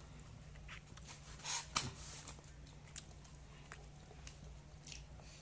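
Faint eating sounds: soft chewing with scattered biting clicks and crunches, and a louder crunch about a second and a half in, over a steady low hum.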